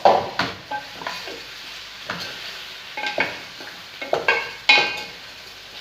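Chicken drumsticks sizzling in a pan while a utensil stirs them, with a handful of sharp knocks and scrapes of the utensil against the pan.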